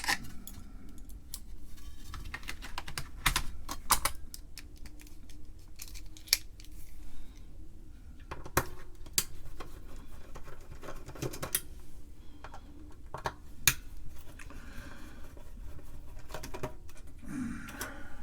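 Irregular light clicks and clatter of a Torx screwdriver and small screws being handled as the screws holding a floppy drive's circuit board are undone.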